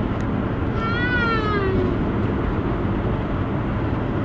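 A cat meows once about a second in, a single cry that rises and then falls, over the steady noise of a vehicle cab.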